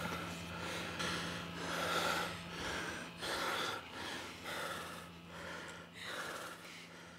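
Breathy gasps and exhalations repeating about twice a second over a steady low hum, gradually fading out.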